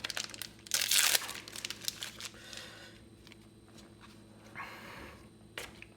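Booster pack wrapper crinkling and tearing as a trading card pack is opened, loudest about a second in, with light clicks of cards being handled.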